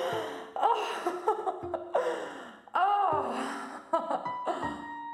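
Wordless human vocal outbursts in a series of sudden bursts with sliding pitch, like gasps, sighs and moans. A steady held tone comes in about four seconds in.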